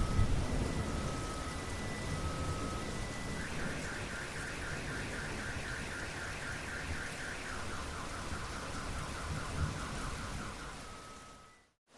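Steady rain, with low thunder rumble dying away in the first few seconds. Over it an electronic alarm, like a car alarm, cycles through its tones: alternating two-note beeps, then a fast high warble, then a lower fast warble. The alarm and rain fade out just before the end.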